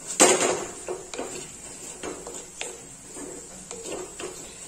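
A wooden spatula stirring cooked jackfruit seed pieces in a black chatti cooking pot, scraping and knocking against the pot's side. One sharp knock comes near the start, then a run of lighter scrapes and taps.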